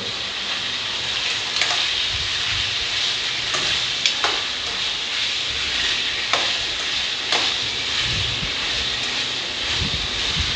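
Chicken pieces sizzling steadily as they fry in hot oil in a kadhai, with a few sharp clinks of a metal spoon and tongs against the pan as they are turned.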